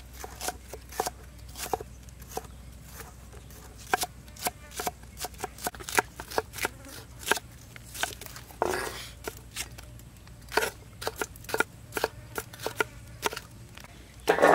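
Kitchen knife chopping shallots and then green bell pepper on a thick round wooden chopping block: quick, irregular knife strikes, a few a second, with a louder knock near the end.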